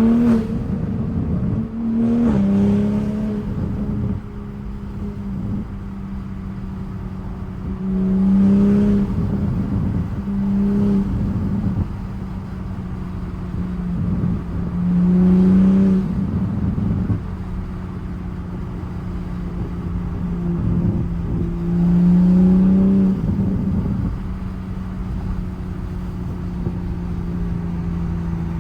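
2021 Toyota Supra with a catless downpipe and aftermarket single-exit exhaust, driven on the road: a steady engine drone broken by about five short bursts of throttle, each louder and rising in pitch before easing back to cruise.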